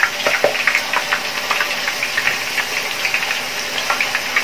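Potato slices deep-frying in hot oil: a steady sizzle with constant fine crackling, while a metal skimmer stirs them apart in the pan.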